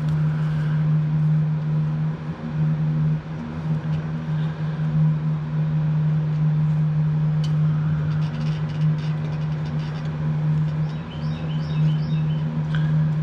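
A steady low mechanical hum, constant in pitch, with a few light clicks over it.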